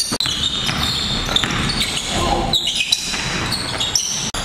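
Basketball bouncing on a hardwood gym floor, echoing in a large hall, with short high sneaker squeaks.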